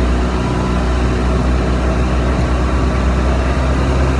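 Golf cart driving along, its motor running with a steady low drone.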